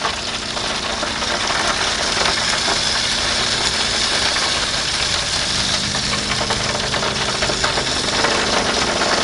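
Steady hiss of a Weber Genesis II E-310's propane burners running with the lid open. A faint low hum joins about halfway through.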